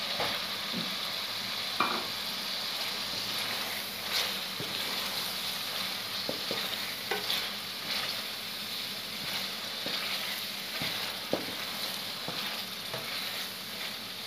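Onion-tomato masala sizzling in an aluminium pot as boiled potatoes are stirred through it with a wooden spatula. Over the steady sizzle come scattered sharp knocks and scrapes from the stirring.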